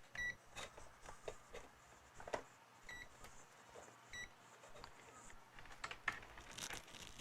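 Digital multimeter giving three short high beeps, amid light clicks and taps on the workbench.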